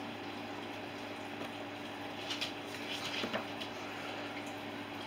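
Steady background hum with a few soft clicks and taps about two to three and a half seconds in, as a hot glue gun is handled and set down on a paper-covered craft table.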